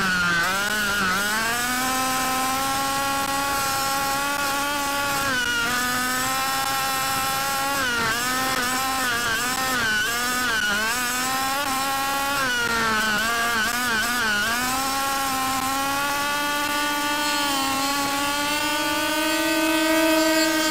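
Fully modified OBR 30.5cc two-stroke engine of a 5th-scale HPI Baja RC buggy running hard at speed, its pitch dropping briefly several times as the throttle is lifted for corners and climbing back up on each straight.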